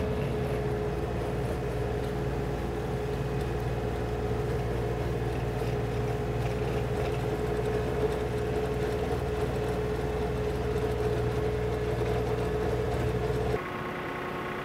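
A John Deere compact tractor's diesel engine running steadily under load, driving a rear PTO rotary tiller through the soil. About a second before the end the sound switches abruptly to a second, quieter tractor engine running.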